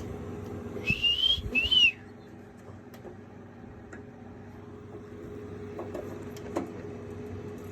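Two short whistles about a second in, the first rising in pitch and the second rising then dropping, over a steady low hum.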